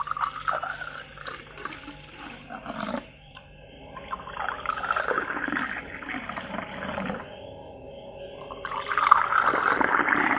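Water poured into a drinking glass in a few separate pours. In each pour the pitch of the stream climbs as the glass fills.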